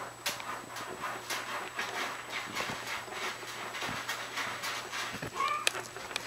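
Light taps and scuffles throughout, with one short, rising kitten mew a little after five seconds in.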